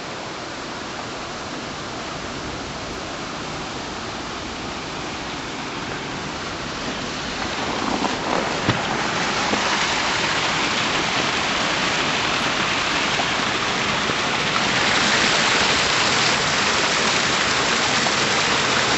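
Water rushing and splashing through a canal lock gate: a steady hiss that grows louder partway through and again near the end.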